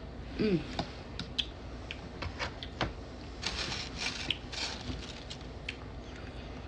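Close-up eating sounds: an irregular run of small clicks and crisp ticks from chewing and utensils on food. There is a short voiced hum about half a second in.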